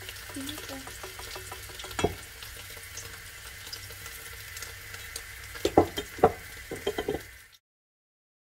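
Flour-coated string cheese frying in hot oil in a frying pan, a steady sizzle. A sharp tap comes about two seconds in and a quick run of taps near the end, then the sound cuts off.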